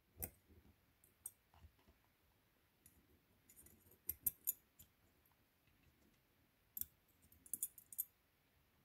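Small steel clamping jaws of a pencil sharpener's three-jaw self-feeder chuck being set onto their metal carrier plate by hand: light metallic clicks and taps, bunched about four and seven seconds in.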